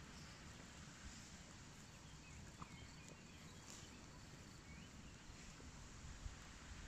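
Near silence: faint outdoor background hiss, with a few faint high chirps around the middle.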